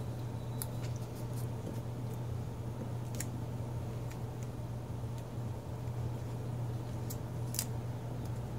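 A steady low hum, with a number of light, sharp clicks and taps as a small aluminium plate and its paper template are handled on a wooden workbench.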